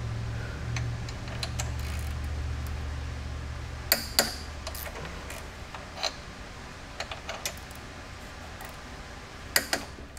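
Metal hand tools clicking and clinking on the cylinder head of a Tillotson 212 small engine as its head bolts are being worked loose: scattered sharp clicks, the loudest about four seconds in and near the end. A low background hum fades about four seconds in.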